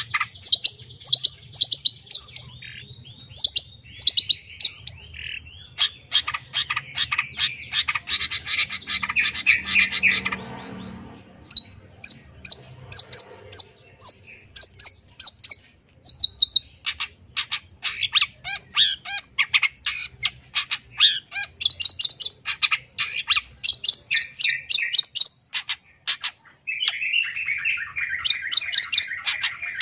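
Long-tailed shrike (cendet) singing a long, varied song of rapid chirps and trills, filled with phrases mimicked from other birds. About ten seconds in there is a short harsh, rasping passage, and near the end a steady, lower trill.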